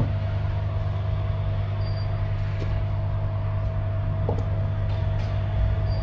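Steady low electrical or machine hum with a thin constant tone above it, and a faint tick about four seconds in.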